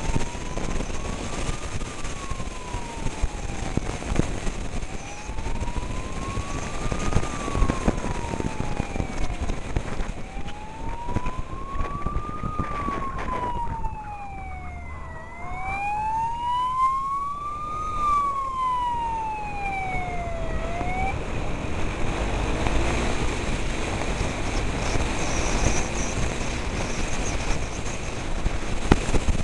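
Wailing emergency siren of a fire service motorcycle, rising and falling slowly about once every five seconds, then stopping about two-thirds of the way through. Steady road and wind noise from riding runs underneath.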